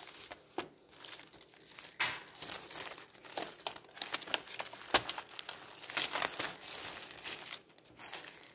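Clear plastic wrap crinkling and crackling as it is pulled off a metal pencil tin, with a few sharper snaps of the film along the way.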